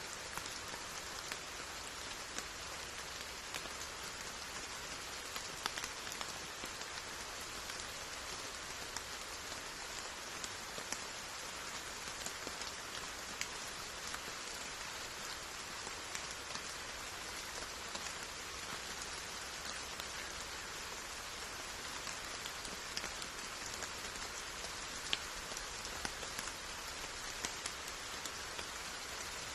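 Steady rain falling, an even hiss with many individual drops ticking sharply here and there.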